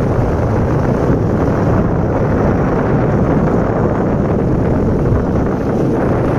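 Steady rush of wind buffeting the microphone on a moving motorbike, with the ride's road and engine noise blended underneath.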